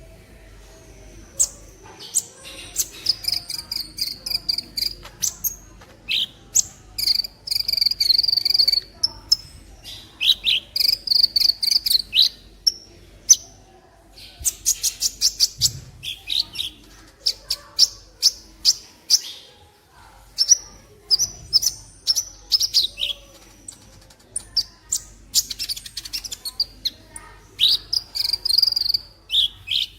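Sunbird (the bird called 'kolibri' by Indonesian bird-keepers) singing: rapid, high-pitched chattering trills and sharp chirps in repeated bursts, one after another.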